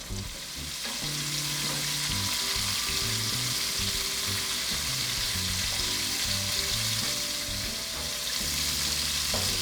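Butter, cream and chicken stock heating in a saucepan for a cheese sauce, giving a steady sizzling hiss. Quiet background music with held low notes plays underneath.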